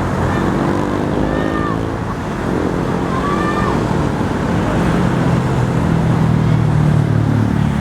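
Bus engines running past on the road, their pitch sliding twice in the first few seconds, then a deeper engine building up and accelerating near the end.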